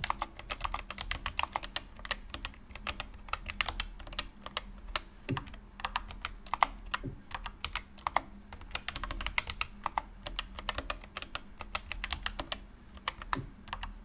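Continuous fast typing on a Keychron K1 low-profile mechanical keyboard with Gateron Brown switches: a dense, steady run of key clicks, several strokes a second.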